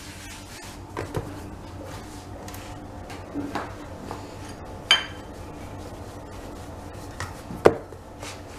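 Wooden rolling pin rolling out pizza dough on a wooden chopping board, with a handful of scattered knocks and taps of the pin and hands against the board; the sharpest knocks come about five seconds in and near the end.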